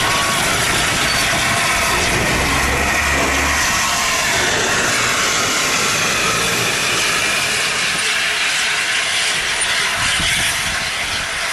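Steam locomotive Tornado, the new-build LNER Peppercorn A1 Pacific, working with a steady hiss of steam over a low rumble of the engine and rail noise, easing off a little near the end.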